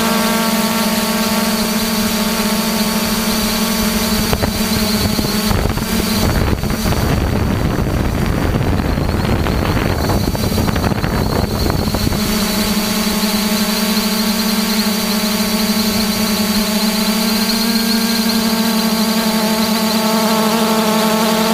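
Multirotor drone's electric motors and propellers buzzing steadily, heard from the onboard camera, with a thin high whine above the hum. About six seconds in the steady pitch breaks up into a rough rushing noise for several seconds, then the even buzz returns.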